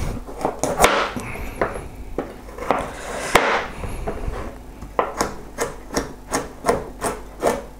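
Chef's knife dicing carrots on a plastic chopping board. At first there are irregular knocks and slicing scrapes, then from about five seconds in a steady run of knife knocks, about three a second.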